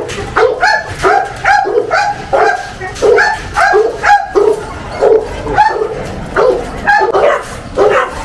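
Dog barking rapidly over and over, about two to three barks a second: an agitated reaction to another dog brought up close to its cage.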